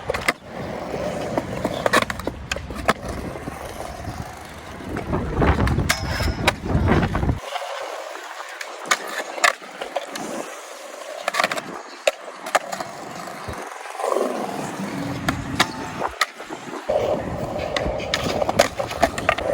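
Skateboards rolling over concrete, with repeated sharp clacks of boards popping and landing. A low wind rumble on the microphone comes and goes, dropping away in the middle.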